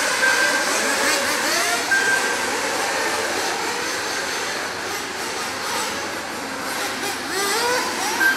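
Several nitro RC buggies and truggies racing at once, their small two-stroke glow engines revving up and down in overlapping rising and falling whines. A short, steady electronic beep sounds three times: near the start, about two seconds in, and at the very end.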